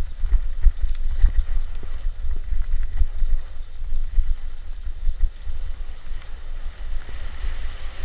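Wind buffeting the microphone in an uneven, gusting rumble, with scattered faint ticks. A steady hiss comes in near the end.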